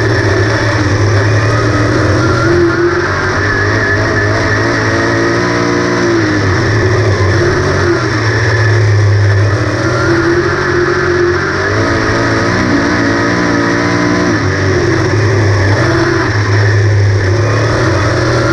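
On-board sound of a 358 Modified dirt race car's small-block V8 at racing speed, loud and continuous. The engine note rises and falls in pitch every few seconds as the driver gets on and off the throttle around the track.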